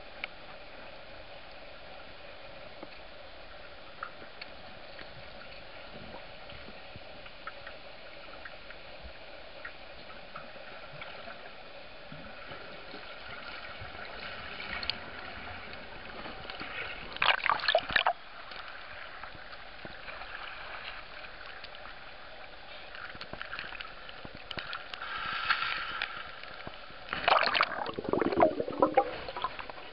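Water heard through an underwater camera: a steady hiss with gurgling and sloshing, swelling into loud crackling splashes about halfway through and again near the end.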